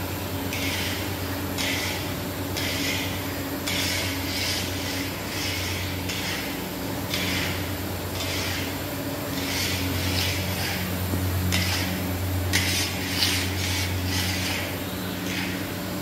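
Steam-heated mawa (khoya) making kettles running: the geared motors driving the stirrers give a steady low hum, with a hissing, rasping sound repeating about once a second as the paddles turn through the boiling milk amid the venting steam.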